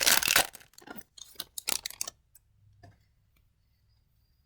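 Hockey card pack wrapper crinkling and tearing as it is opened, dying away about two seconds in, followed by a few faint ticks.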